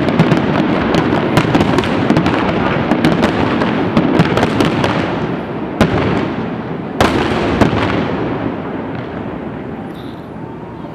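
Aerial fireworks display: a dense barrage of crackling bursts and bangs over a continuous rumble. It thins out to two single sharp bangs about six and seven seconds in, then dies away into fading echo.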